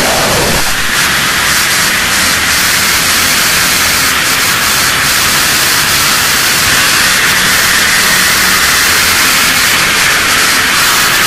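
Harsh noise music: a loud, unbroken wall of distorted static hiss across the whole range. A short low sweep falls away in the first second, and a faint low hum runs beneath.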